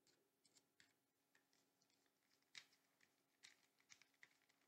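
Faint, scattered clicks and ticks of small hardware being handled as a bolt is screwed through the plastic extruder bracket into the extruder motor, the sharpest about halfway through and again a little later.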